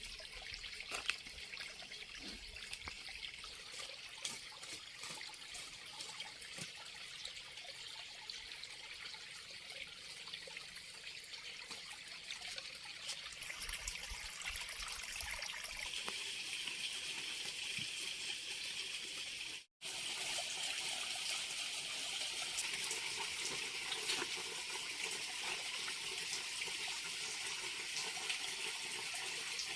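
Water trickling and flowing steadily, with a brief dropout about twenty seconds in.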